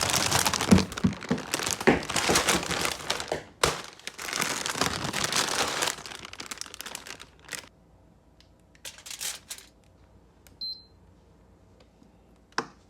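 Plastic packaging crinkling and tearing for about six seconds, as a frozen Korean corn dog is unwrapped. Then quieter handling with a few clicks, a short electronic beep about eleven seconds in, and a knock near the end.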